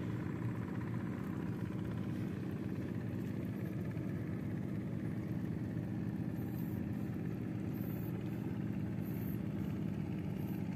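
An engine running steadily at constant speed, a low even hum.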